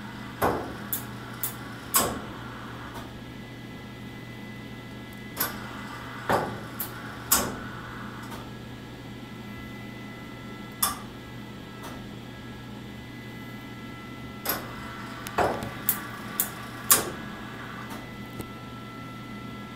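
CNC lathe tool turret indexing to a newly selected tool: a series of sharp clunks and knocks in uneven clusters over a steady hum.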